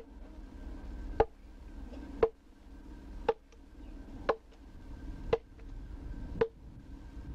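An adze chopping into a wooden log, one sharp blow about every second, seven in all, as the rough shape of a mask is blocked out and the bark is cut away.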